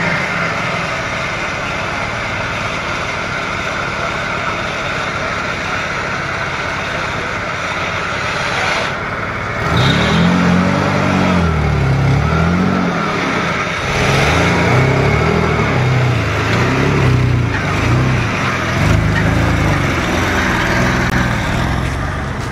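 A 4x4's engine running steadily, then from about ten seconds in revving up and down over and over, each rise and fall lasting about a second.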